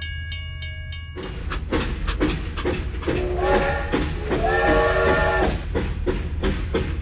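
Battery-powered toy steam locomotive running along a plastic track, its wheels and motor clicking steadily, with two electronic whistle toots from its sound chip, the second longer. A steady electronic tone stops about a second in.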